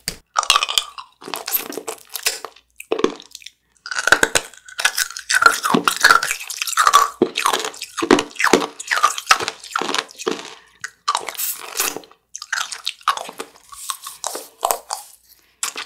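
Rock candy on a stick being bitten and chewed, a long run of crisp crunches, busiest in the middle with brief pauses.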